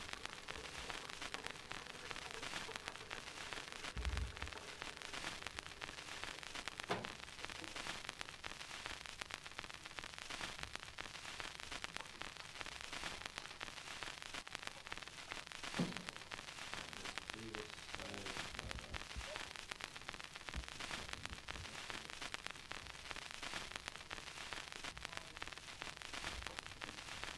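Steady hiss of room tone, with a few faint knocks and thumps scattered through.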